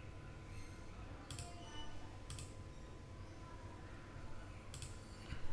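A few faint, separate computer mouse clicks spread over a few seconds, against quiet room tone.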